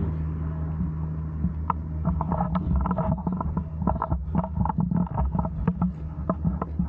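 A motor's steady low hum, with many short, sharp crackles scattered over it from about a second and a half in.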